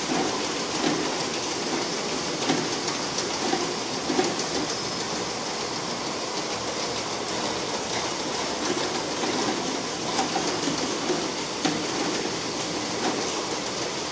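Bottle conveyor running: the slat chain and geared motor drive make a steady mechanical rattle, with an irregular clatter of small plastic bottles knocking against each other and the guide rails. A thin high steady tone runs underneath.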